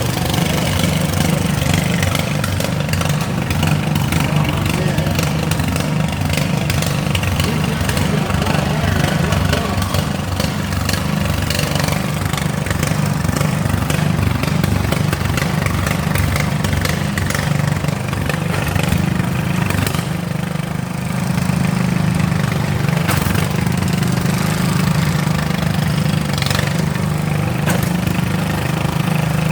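Small lawn mower engines running steadily, with frequent short clicks and knocks over them.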